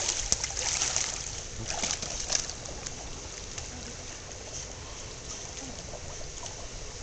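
Pool water sloshing as a dog swims, with a few small splashes in the first couple of seconds from its paddling, then settling to a faint steady lapping.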